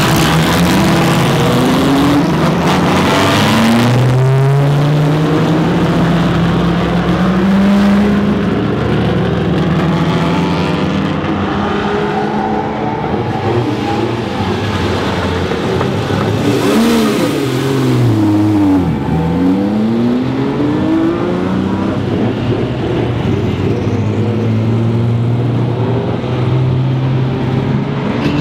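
Engines of several historic race cars running and revving as they pull away down a pit lane one after another, their notes rising and falling as they accelerate and shift. About halfway through, one car passes close by.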